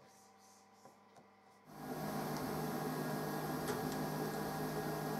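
Near silence with a couple of faint clicks, then about two seconds in a steady hiss with a low electrical hum sets in: room tone of running workshop equipment.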